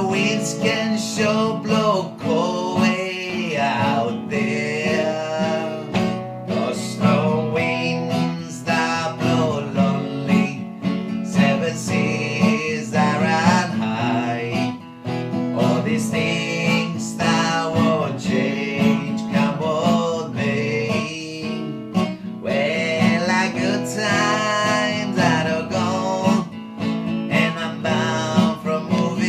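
Acoustic guitar strumming a country-folk accompaniment, with a wavering melody line carried above it.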